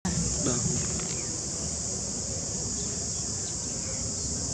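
A steady, high-pitched drone of insects, with a low rumble beneath it and a few faint short chirps.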